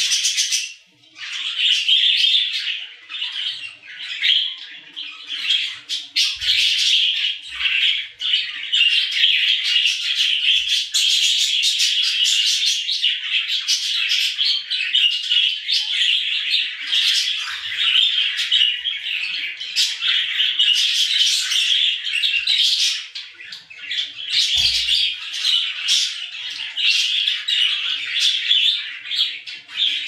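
Budgies (budgerigars) chirping and warbling in a dense, almost unbroken stream of chatter, with a brief lull about a second in and another a few seconds before the end.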